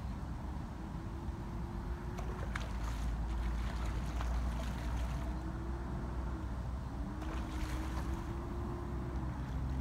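Wind rumbling on the microphone, with a distant motor droning faintly over it, its pitch slowly rising and falling.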